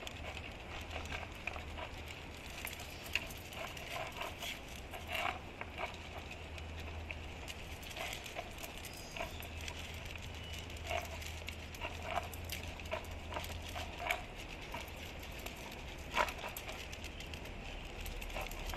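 Dogs eating dry kibble from food bowls: irregular crunching and clicking of kibble and teeth against the bowls.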